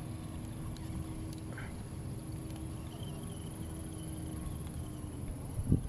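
Radio-controlled crawler truck's electric motor whining faintly as it drives off over grass; the steady whine stops about five seconds in. A low rumble runs underneath, with a single thump near the end.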